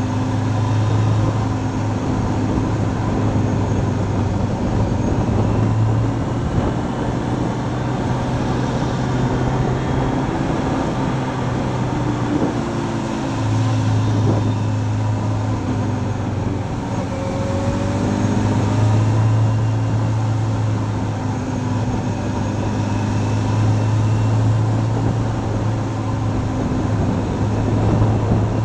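Motorcycle engine running steadily under way, heard from a camera mounted on the bike, over a steady rush of road and wind noise. The engine note drops away briefly about halfway through, then comes back.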